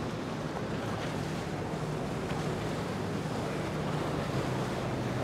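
Triple Mercury 350 outboards on a Nor-Tech 390 Sport center console running at low speed, a steady low hum over the wash of water, with wind on the microphone.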